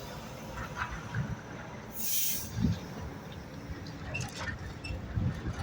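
Low outdoor rumble with a short, sharp hiss about two seconds in and a few dull thumps.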